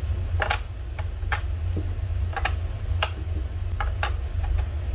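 USB flash drive being fitted into a laptop's side USB port: a handful of sharp, irregularly spaced clicks and taps of plastic and metal as the plug meets the socket. A steady low hum runs underneath.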